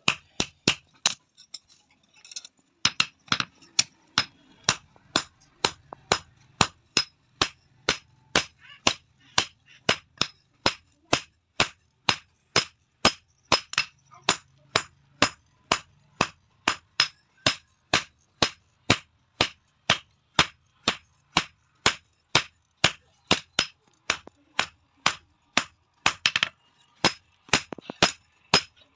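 Hand hammer striking red-hot steel on an anvil, forging a spear blade: sharp, ringing blows in a steady rhythm of about two a second, with a short break about two seconds in and a quick run of blows near the end.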